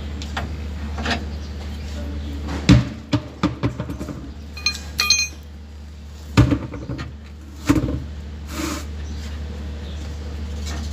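Metal parts and hand tools knocking and clinking while a front spindle assembly is fitted to a pickup's suspension: scattered sharp knocks starting a couple of seconds in, with a short ringing metallic clink near the middle, over a steady low hum.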